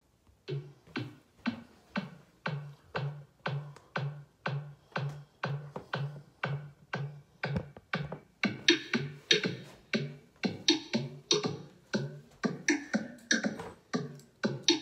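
Hip-hop backing beat: an electronic drum beat with a low, pitched kick on every hit, about two a second. About eight seconds in, brighter snare and hi-hat layers join and the beat gets fuller.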